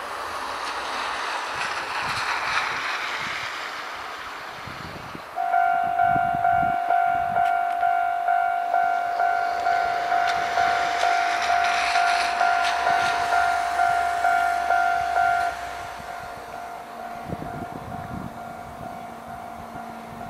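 Railway level-crossing warning bell ringing, a steady two-tone ding pulsing about twice a second. It starts about five seconds in, rings for about ten seconds, then drops to a fainter tone. Before it, a rushing noise swells and fades.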